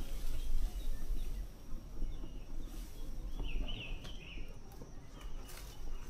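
Outdoor ambience: a steady low rumble on the microphone, with a short burst of bird chirps about three and a half seconds in and a few faint clicks.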